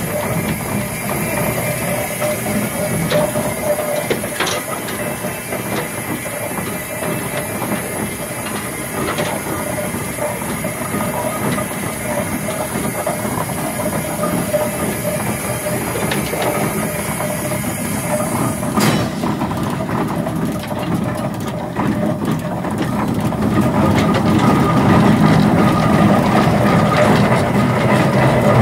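1912 McLaren road locomotive running under steam, heard from the footplate: the engine's motion working steadily with a high hiss of steam. About two-thirds of the way through, the hiss cuts off with a click, and the engine grows louder near the end.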